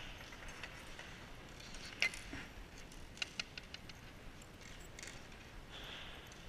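Small steel bolts, nuts and washers clicking and clinking against each other and the wooden tabletop as they are handled, with a sharp click about two seconds in and a quick run of clicks a little after three seconds.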